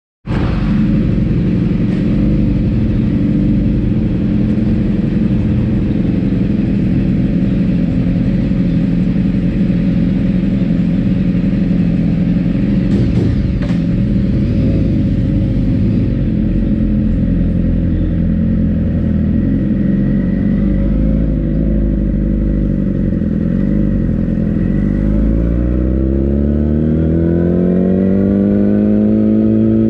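Race motorcycle engine running steadily at idle, with a few brief clicks about halfway through. Over the last few seconds the revs rise smoothly as the bike pulls away, then hold.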